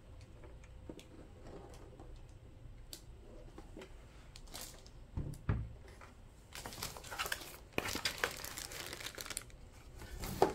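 Clear plastic bag crinkling and rustling as a wrapped sewing-machine foot pedal is handled, in several stretches through the second half, after a dull bump about five seconds in.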